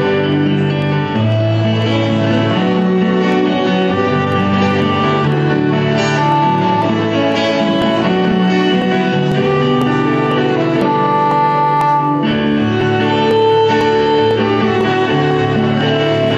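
Live acoustic folk instrumental: a violin plays a melody of held notes over strummed acoustic guitar.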